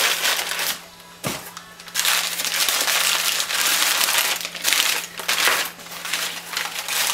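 Brown kraft packing paper rustling and crumpling as it is pulled from a cardboard box and unwrapped from a metal gas regulator, almost without pause from about two seconds in. A single sharp knock comes about a second in.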